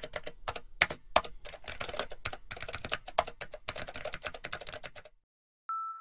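Rapid, irregular computer-keyboard typing clicks, stopping about five seconds in. Just before the end a clear chime-like musical note begins.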